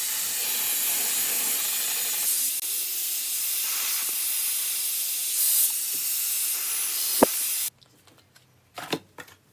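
Hot-air styling brush blowing with a steady, loud hiss that cuts off suddenly near the end, followed by a few faint clicks and rustles of handling.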